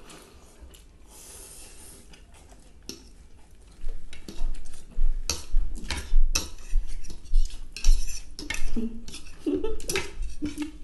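Metal forks clinking and scraping against ceramic plates as two people eat noodles. Quiet at first, then frequent sharp clinks and scrapes from about four seconds in.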